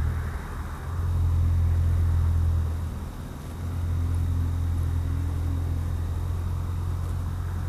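Mazda CX-5's 2.0-litre four-cylinder running through a Corksport aftermarket exhaust and short ram intake: a low, steady exhaust drone that dips briefly twice.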